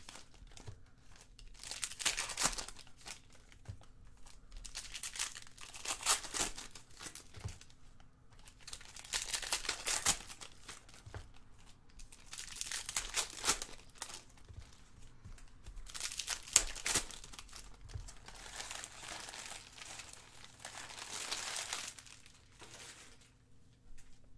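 Wrappers of Panini Prizm basketball card packs crinkling and tearing as the packs are ripped open one after another, in bursts every second or two with a longer crinkle near the end.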